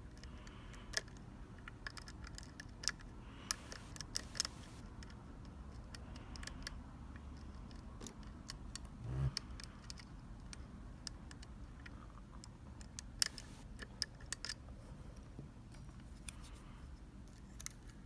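Lock picks working inside a Sargent Keso mortise cylinder: irregular sharp metallic clicks and ticks, some in quick clusters, with one soft low thump about nine seconds in.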